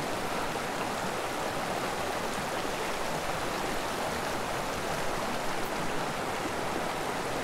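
Small mountain creek flowing: a steady, even rush of water.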